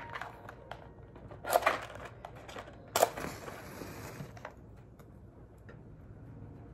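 A match struck on the side of its box: two scraping strikes about a second and a half apart, the second catching and flaring with a short hiss. It is lighting a stick of incense.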